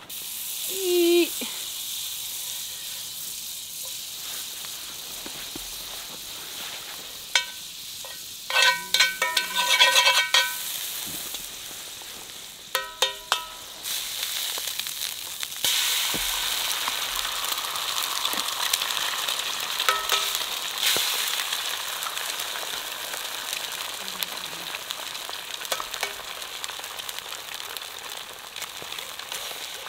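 Eggs frying in hot bacon grease in a skillet over a campfire: a steady sizzle that gets louder about halfway through as an egg goes into the pan. A few short ringing clinks come about a third of the way in.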